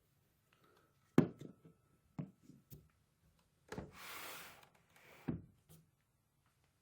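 Quiet handling noise: a few sharp knocks and clicks, the loudest about a second in, with a short burst of hiss around four seconds in.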